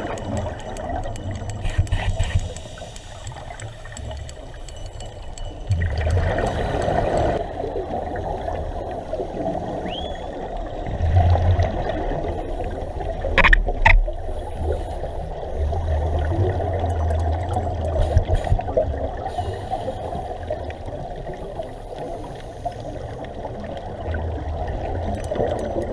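Scuba regulator breathing underwater: exhaled bubbles gurgling in surges every few seconds, with two sharp clicks about halfway through.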